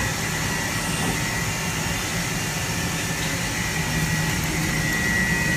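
Steady mechanical hum and hiss of background machinery, with a constant high whine running through it.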